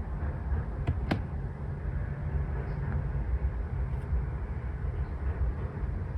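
Road noise and engine rumble inside a moving car, a steady low drone, with two sharp clicks about a second in.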